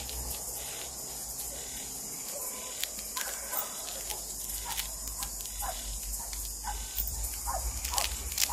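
Dusk chorus of frogs and insects: a steady high insect trill, with scattered short frog calls and clicks joining from about three seconds in, over a low rumble.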